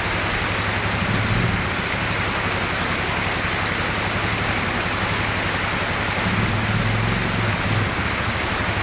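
Creek water rushing over rocks, with a Suzuki ATV's engine running low underneath. The engine swells briefly about a second in and again for a couple of seconds from about six seconds, as the quad climbs over rocks in the streambed.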